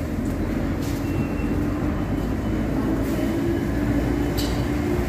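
Steady low rumble with a droning hum, the running noise of a railway station and its trains, with a couple of faint clicks.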